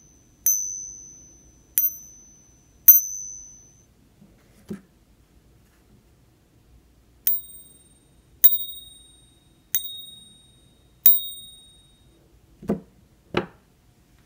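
Ping test on silver eagle coins, each balanced on a fingertip and struck with a thin metal rod. First three strikes on a copper-cored fake, each a single high ring, then four strikes on a genuine .999 silver eagle, each ringing with several tones. Two dull knocks near the end.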